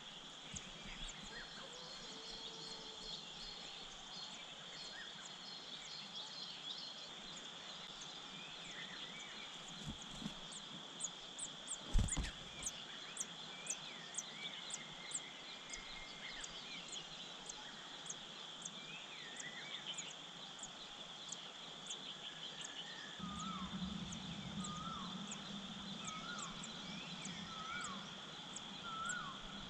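Outdoor ambience: a steady high-pitched insect drone, with a run of short, very high chirps about twice a second through the middle and short down-slurred bird calls repeating near the end. A single sharp knock about twelve seconds in.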